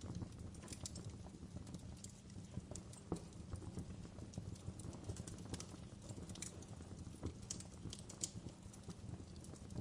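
Wood fire crackling: irregular sharp pops and snaps, a few of them louder, over a steady low rumble.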